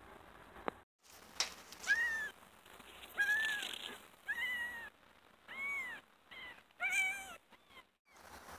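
A young kitten mewing: about seven short, high-pitched mews in a row, each rising and then falling in pitch.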